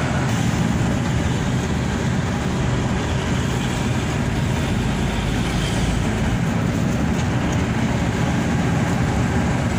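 Steady engine drone and road noise inside the cabin of a Hino RK8 R235-engined coach cruising at highway speed.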